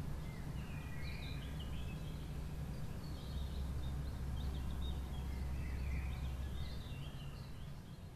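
Outdoor ambience: a steady low rumble with small birds chirping in short scattered calls throughout.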